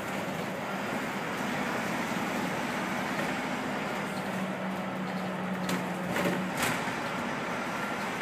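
Leyland National Mk1 bus's Leyland 510 engine and running gear heard from on board as the bus drives along, with a steady droning note. The drone drops away about six and a half seconds in, among a few short knocks.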